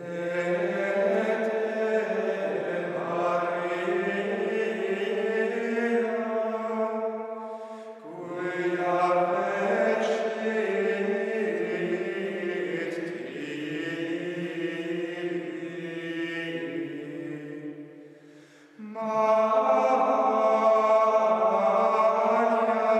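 Male voices of Carthusian monks singing plainchant in unison, slow held notes in long phrases. There are two short breaks between phrases, and the last phrase comes in louder.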